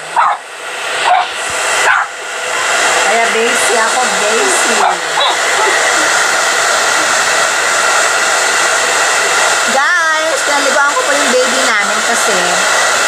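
Hand-held hair dryer blowing on a long-haired dog's wet fur: a steady whooshing hiss with a constant motor whine, getting louder about two seconds in.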